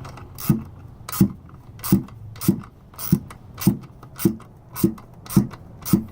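A ratchet clicks about ten times at an even pace, a little under two clicks a second, each with a short squeak, as the valve spring compressor's bolt is tightened down on a K24 cylinder head's valve spring.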